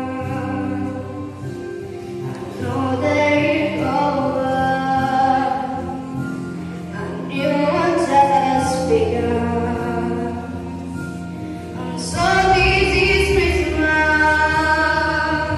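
Children's choir singing together, with steady low notes sustained underneath; the singing grows fuller and louder about twelve seconds in.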